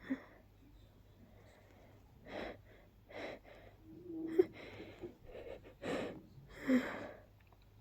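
A person's sharp gasping breaths as an allergy sneeze builds up and is held back: a string of short breathy catches, one of them voiced about four seconds in.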